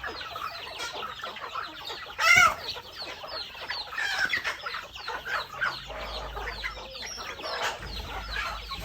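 A flock of chickens clucking and calling continuously, many short overlapping calls, with one loud call standing out about two seconds in.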